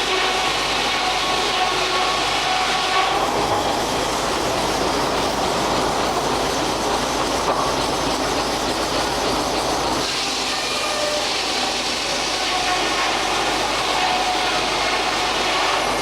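Steam-powered sawmill running: the circular saw, log carriage and steam engine make a continuous mechanical clatter. The sound changes from about three to ten seconds in, then returns to its earlier character.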